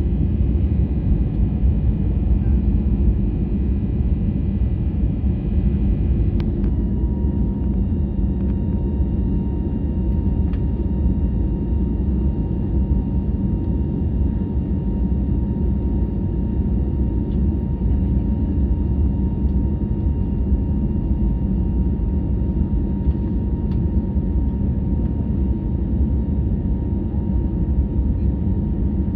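Steady rumble of an airliner's cabin noise in the climb after takeoff, heard from inside the cabin. About six and a half seconds in there is a click, a cluster of higher tones stops, and one thin steady whine goes on over the rumble.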